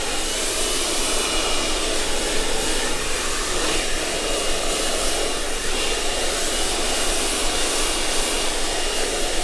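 Handheld hair dryer blowing steadily while drying a section of hair over a round brush: a constant rush of air with a faint high steady whine from its motor.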